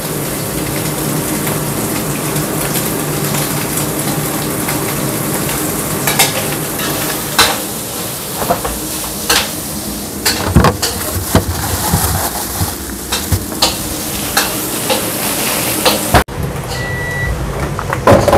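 Food sizzling as it is stir-fried in a wok, with a metal spatula clanking and scraping against the pan in irregular knocks. About two seconds before the end it cuts off abruptly and a short electronic beep sounds.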